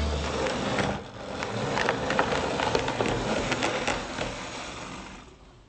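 OO gauge model locomotive running on the layout: the small electric motor whirring, with scattered clicks from the wheels on the track. It swells, then fades away near the end.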